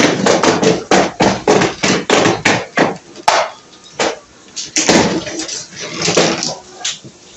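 A rapid series of sharp knocks, roughly three or four a second for about the first three seconds, then a few scattered ones.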